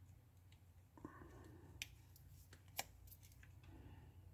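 Near silence broken by three faint clicks, about a second apart, as the replacement screen of an iPhone 6 is pressed down and snapped into its frame.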